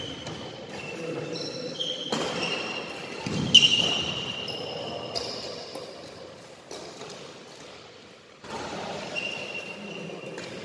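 Badminton play: sharp racket strikes on the shuttlecock and high squeaks of shoes on the court floor, with the loudest hit about three and a half seconds in.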